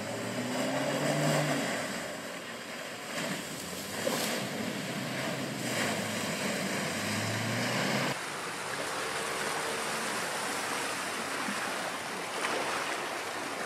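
Land Rover Defender ploughing through deep muddy water ruts: water and mud splashing and spraying against the body, with the engine note rising and falling underneath. About eight seconds in the sound changes abruptly to a steadier rush of splashing.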